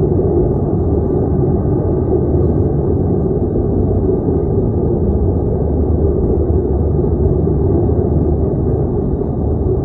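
Large fire at an oil and gas plant burning with a steady low rumble.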